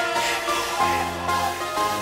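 Electronic music: held synthesizer notes with a deep bass note coming in about the middle.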